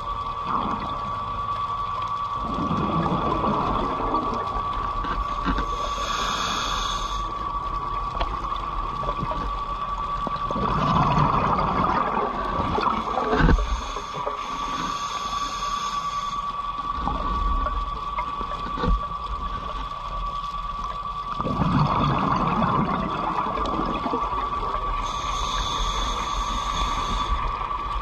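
Scuba diver breathing through a regulator underwater: three long bursts of exhaled bubbles, each a few seconds long, with short hisses of inhalation between them. A thin steady high tone runs underneath.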